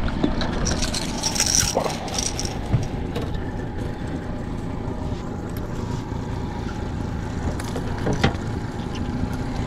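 Boat's four-stroke outboard motor running steadily at trolling speed. A few brief knocks or clicks sound about two seconds in and again near the end.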